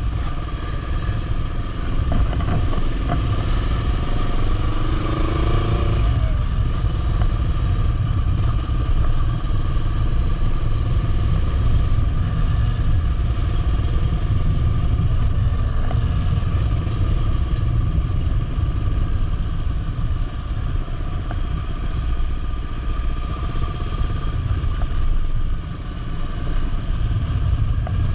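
Motorcycle engine running while riding, its pitch rising as it accelerates for the first few seconds, then holding steady over a heavy low rumble.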